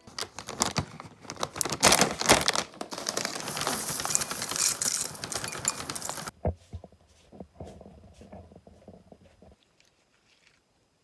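Crinkling and rustling, cutting off abruptly about six seconds in, followed by a few faint clicks.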